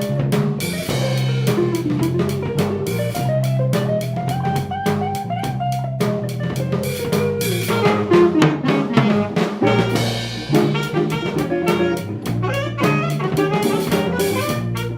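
A small band plays instrumental jazz: a drum kit keeps a busy beat with rimshots under a bass line, while a horn carries a melody that rises and falls.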